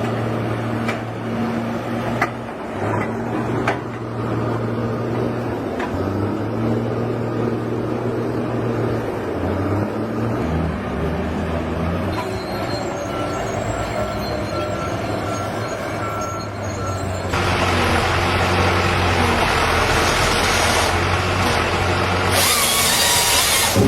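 A power tool's motor hums, its pitch shifting as it runs, with a few sharp clicks; about seventeen seconds in, a louder steady rushing noise of cutting or sanding joins it.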